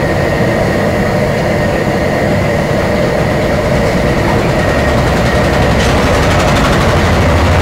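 Steady loud roar of a commercial gas wok burner firing under a big wok of crayfish boiling hard in spicy broth.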